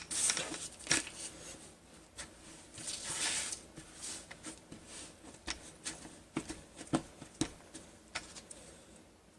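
Scattered light taps and clicks, with a short swish about three seconds in: a plastic 3D-printed cookie cutter being handled and pressed into cookie dough on a counter.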